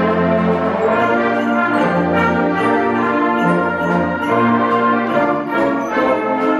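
Concert band playing a Christmas arrangement, with clarinets, trumpets and tubas holding sustained chords and sleigh bells jingling in an even rhythm over the top.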